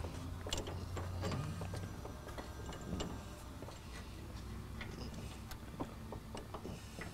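Faint, scattered metallic clicks and taps as a long bolt with a wedge block is worked down through a hole in a truck's frame, over a low steady hum.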